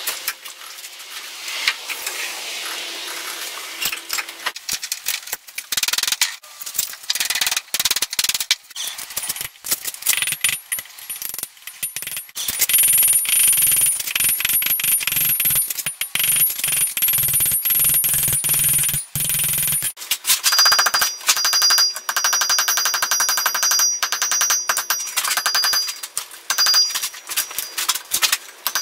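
Hand hammer striking hot square steel stock on an anvil in a long run of blows, the anvil ringing with steady high tones over the strikes, most strongly in the second half.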